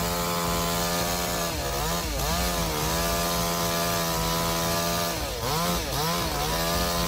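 Two-stroke chainsaw running at high revs and cutting. Its steady engine whine dips in pitch and recovers around two seconds in and again around five and a half to six seconds in.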